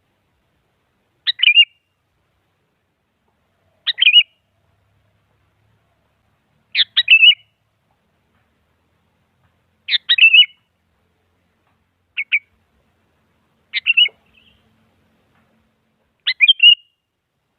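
Sooty-headed bulbul (kutilang) giving short, quick call phrases, seven of them, repeated about every two to three seconds.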